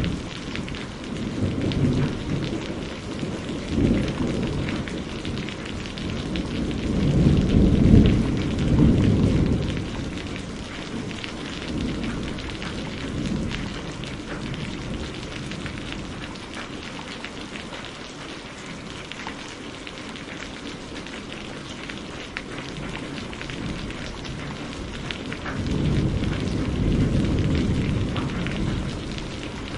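Steady rain falling, with low rolling thunder swelling up several times, loudest about seven to nine seconds in and again near the end.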